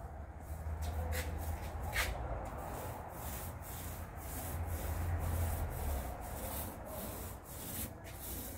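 Paint being worked onto a gate in repeated rubbing strokes, about two to three a second, over a low steady hum that fades out about six seconds in.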